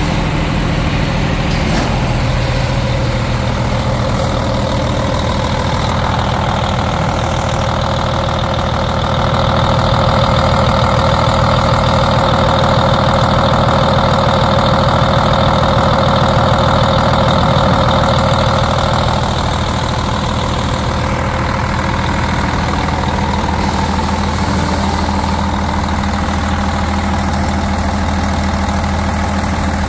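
2001 Cummins ISM 330, a 10.8-litre inline-six diesel, idling steadily. The idle grows somewhat louder for about ten seconds in the middle, then settles back.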